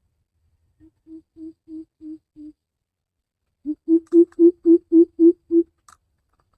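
Greater coucal calling: two series of deep, even hoots, a softer run of about six and then a louder run of about eight, about four a second.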